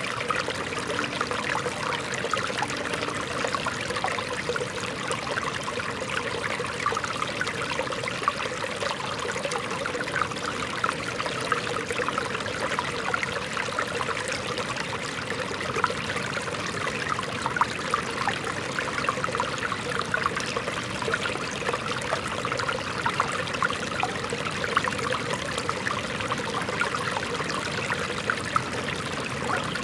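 Shallow, rocky stream flowing and trickling over stones: a steady rush of water with constant small gurgles and splashes.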